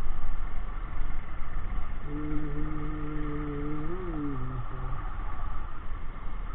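Bajaj Discover motorcycle on the move, its engine running under a steady rush of noise. From about two seconds in, a held low tone sounds for about two and a half seconds, bending up and back down just before it stops.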